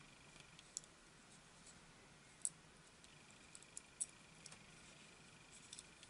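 Faint, scattered small clicks and taps of fingers handling a replacement power-button flex cable and the small parts of an iPod Nano's frame, the loudest about two and a half seconds in.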